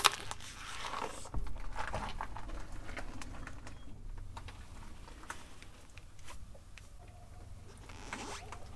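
A car tyre rolling slowly over asphalt and pressing down on plastic toy balls: a sharp crack at the very start, then scattered crackles and clicks of grit and plastic under the rubber, over a low steady rumble.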